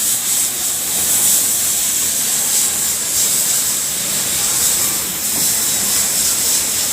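Industrial overlock (serger) sewing machine running at speed: a steady, loud whir with a strong high hiss and no break, as the looper setting is test-sewn.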